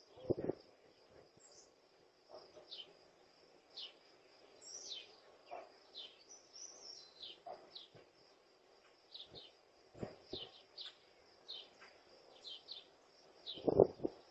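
Birds chirping outdoors, many short falling chirps, over a steady high-pitched tone. A few faint knocks, and one brief louder knock near the end.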